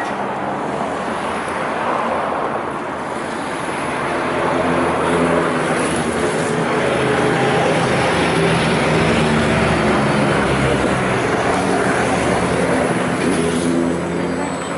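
Stationary Greater Anglia Class 755 bi-mode train with its diesel power-pack engines running. The engine note grows louder about four seconds in and holds. A high steady tone starts near the end.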